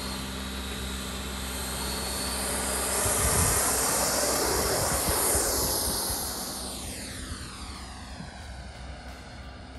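90 mm electric ducted fan of a 3D-printed MiG-15 RC jet at takeoff power on its takeoff run, a jet-like rushing whine. It grows louder as the jet rolls past, peaks about four to five seconds in, then drops in pitch and fades as the jet lifts off and climbs away.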